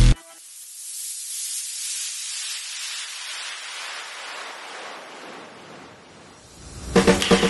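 A white-noise sweep in an electronic dance track's break: the beat cuts out and a hiss plays, getting fuller and lower over about six seconds. The drums and synths come back in near the end.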